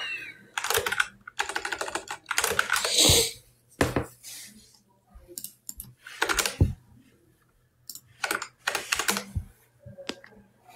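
Irregular bursts of typing on a keyboard: quick clusters of clicks with short pauses between them, and a longer, noisier burst about three seconds in.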